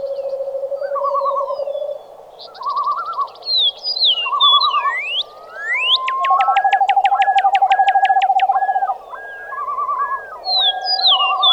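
Dawn chorus of several birds calling over one another: high whistled notes that slide downward, short warbling phrases and a low, steady trill. About halfway through comes a fast run of sharp chirps, roughly eight a second, followed by a repeated two-note call.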